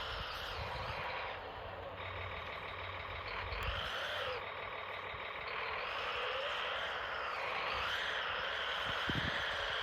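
Radio-controlled Kyosho Blizzard tracked vehicle running, its small electric motor and drivetrain whining continuously, the pitch rising and falling with the throttle.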